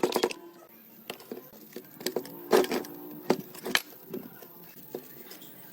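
Scattered clinks and knocks of metal parts or tools being handled, about half a dozen in all, a few leaving a short ring.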